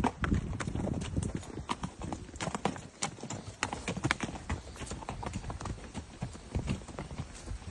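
Horse hooves clip-clopping, a quick, irregular run of sharp knocks, over a low rumble.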